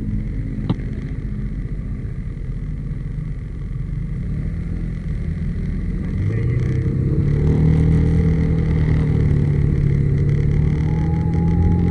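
Yamaha SMAX scooter's single-cylinder engine ticking over, then pulling away from a stop about halfway through, with a steady humming drone growing louder as it gathers speed. This is the abnormal hum the owner hears on setting off.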